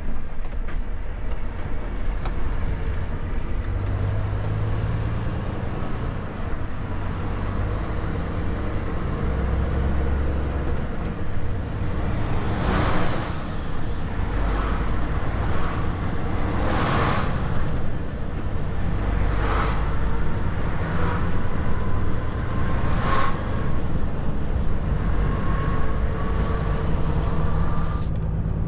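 Volvo FH 460 truck's 13-litre six-cylinder diesel engine and road noise while driving, a steady low rumble that shifts now and then. In the middle comes a run of about seven short whooshes, and near the end a faint whine rises slowly in pitch.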